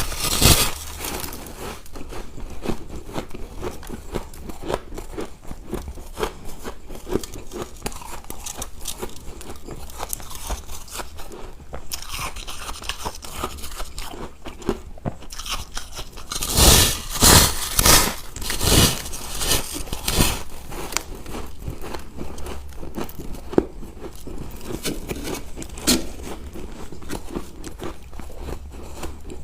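Ice being bitten and chewed close to the microphone: a steady crackling crunch, with a run of louder, heavier crunches a little past halfway.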